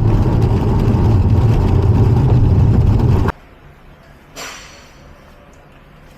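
A car engine running loudly and steadily, cut off abruptly about three seconds in, leaving a quiet background with one brief faint noise.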